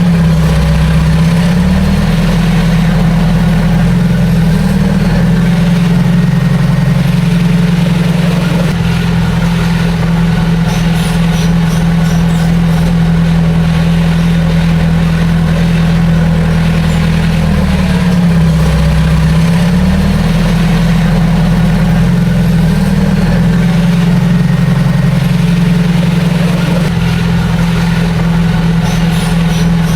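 Heavy diesel engine of earthmoving machinery running steadily. Its pitch dips briefly and recovers twice, once right at the start and again about two-thirds of the way through.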